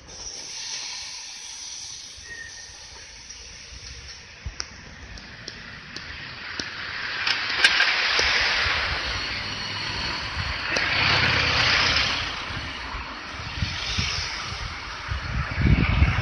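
Cars passing one after another on the road, each a swell of tyre hiss that rises and fades, three times over; low rumbling near the end.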